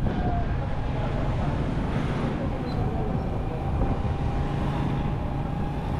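Street traffic on a busy market road: motorcycles and cars running past with a steady low engine rumble. A thin, steady whine runs through most of it.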